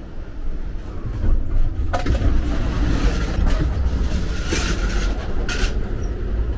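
Amtrak Empire Builder train running at speed, heard from inside while passing between cars: a steady low rumble that grows louder and noisier about two seconds in as the push-button door opens onto the vestibule, with two brief hissing bursts past the middle.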